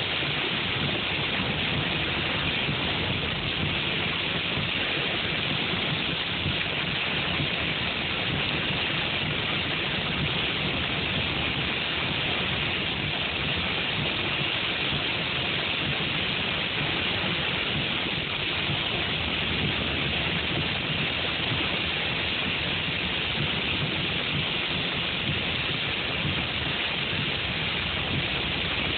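Hail and heavy rain beating on a car's roof and windshield, heard from inside the car as a steady, unbroken din.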